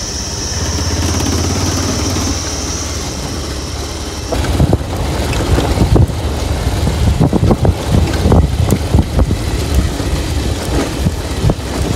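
Motorbike running at low speed on a rough dirt road, with a steady high whine over the first four seconds. After about four seconds the sound turns to a loud, irregular clatter of knocks and rattles as the bike bounces over the stony track.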